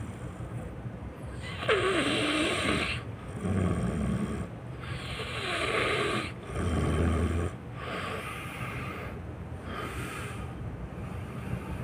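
A person snoring in regular breaths about every three seconds, a breathy rush alternating with a low rattling snore, the later breaths softer.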